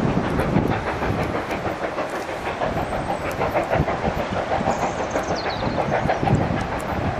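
Steam locomotive working a train, its exhaust chuffing steadily against a steady background rush with wind on the microphone. A brief high falling chirp about five seconds in.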